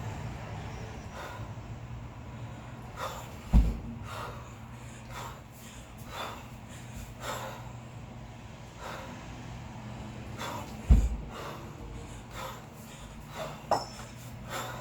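Sharp, rhythmic breaths of a kettlebell lifter working a set, about one a second. Twice, about seven seconds apart, there is a heavy low thud, one per repetition of a double 16 kg kettlebell long cycle.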